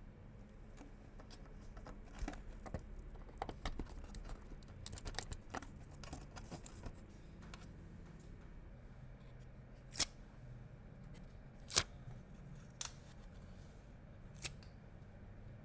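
Hands working on PC parts during assembly: scattered small clicks, snips and rustles over a faint low hum, with a few sharper single clicks in the second half.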